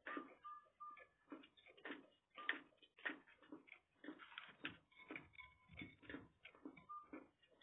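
Quiet eating sounds: chewing and mouth smacks, a quick irregular run of small clicks several times a second.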